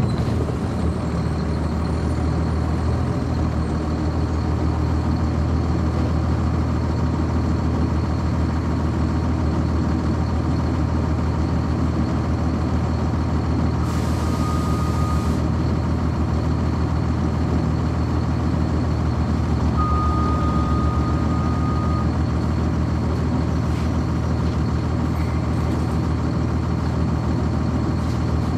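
The Cummins ISC straight-six diesel of a 1999 Nova Bus RTS transit bus, heard from on board, running steadily under way. About halfway through, a short hiss of air comes with a steady beep, and a longer beep follows a few seconds later.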